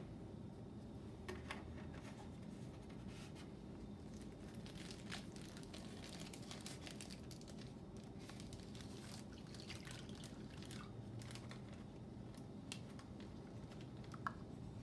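A light knock at the start, then faint, scattered crinkling of a thin plastic zip-lock sandwich bag as it is held open and milk is poured into it from a measuring cup.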